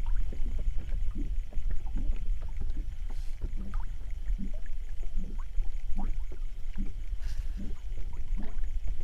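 Small waves lapping and slapping against the hull of an inflatable boat in short, irregular splashes, over a steady low rumble.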